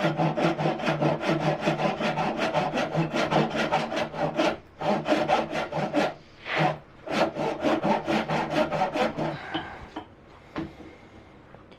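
Hand saw cutting oak in quick, even back-and-forth strokes, with two brief pauses, stopping about nine seconds in; a single sharp knock follows near the end.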